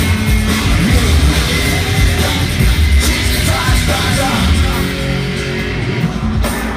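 Loud live electronic rock music from a band on stage: heavy pulsing drums and bass with guitar, heard from within the crowd.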